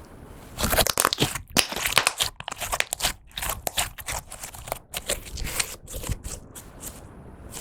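Clear slime being squished and stretched by hand, giving a dense, irregular run of crackling pops and crunches that starts about half a second in.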